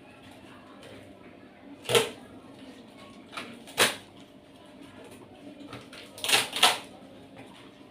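Sharp crunches of crisp food being bitten, a handful of them a second or two apart, the last two close together.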